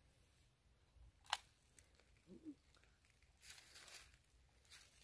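Near silence in the night woods, broken by a single sharp click about a second in, a faint brief wavering sound a little later, and soft rustles in the second half.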